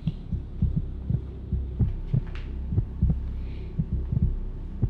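Low, dull thumps several times a second over a steady low hum, like a dramatic heartbeat sound effect laid under a tense moment.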